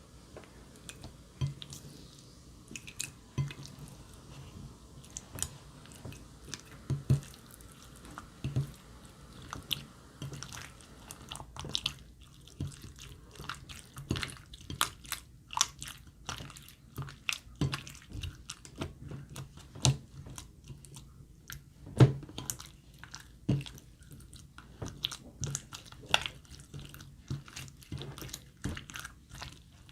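Glossy slime being squished and worked by hand, making irregular wet clicks and pops, the loudest about two-thirds of the way through.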